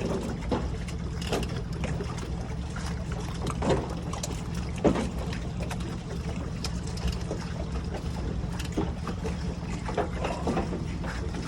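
A boat on the water: a steady low rumble with scattered knocks and splashes.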